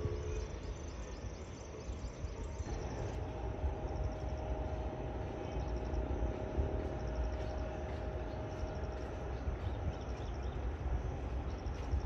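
Distant Airbus A350 airliner's low rumble, with a steady mid-pitched whine that starts about three seconds in and fades out near nine seconds. Insects chirp in a fast, repeating high pattern over it.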